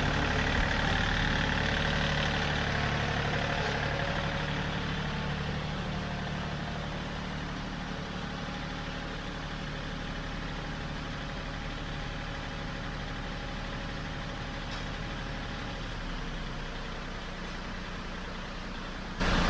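John Deere compact tractor's diesel engine idling steadily, slowly growing fainter.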